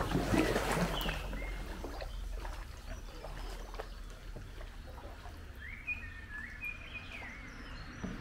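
Outdoor ambience on the water: a brief splash of water at the start, then a small bird chirping a few short, bending notes about a second in and again several times around six to seven seconds in, over a steady low rumble.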